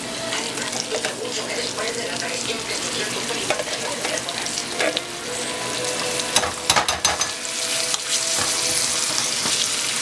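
Beans and seasonings sizzling and crackling in a hot pot as they are stirred, with a cluster of sharp clicks a little past the middle.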